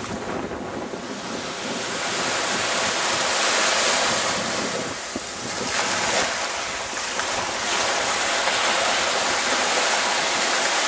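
Small waves breaking and washing up a sandy beach, with wind on the microphone. The surf rises and falls every few seconds.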